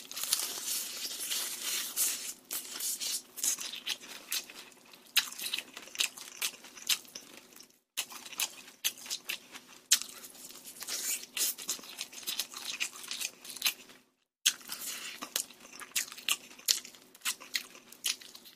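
Close-miked chewing of crispy rice-battered fried chicken: a dense run of irregular crunches and crackles. The sound drops out completely for a moment about eight seconds in, and again about fourteen seconds in.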